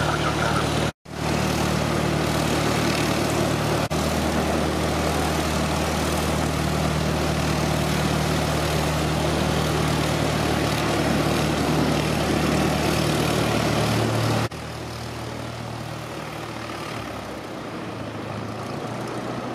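Light propeller aircraft piston engines running steadily at low power while taxiing, a constant drone. The sound breaks off briefly about a second in and drops noticeably in loudness about three quarters of the way through.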